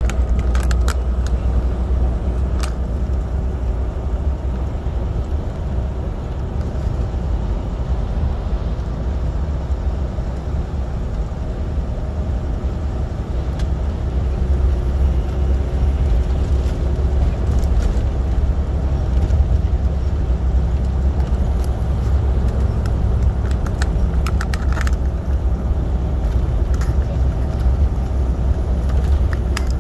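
Inside a semi-truck cab at highway speed: a steady low engine and road drone, with a few sharp rattles or clicks now and then.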